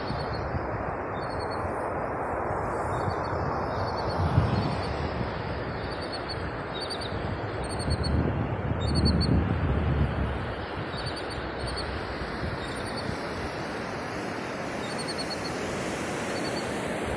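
Steady wash of ocean surf with wind buffeting the microphone in gusts, about four seconds in and again around eight to ten seconds in. Faint high bird chirps recur throughout.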